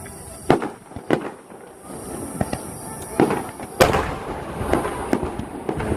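Fireworks shells bursting at a fireworks display: a string of sharp bangs, about seven, each trailing off in an echo. The loudest comes just under four seconds in.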